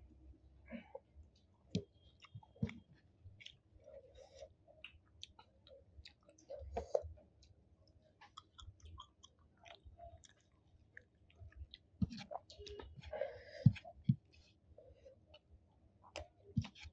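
Close-miked chewing of a mouthful of rice and curry: soft wet mouth sounds with many short lip smacks and clicks scattered throughout.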